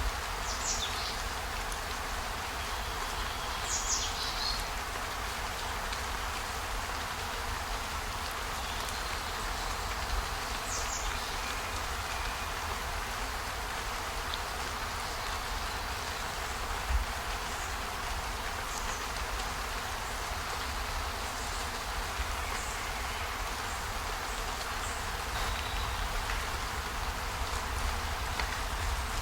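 Steady rain ambience, an even hiss with a low rumble underneath, broken by a few brief high chirps, about three in the first dozen seconds.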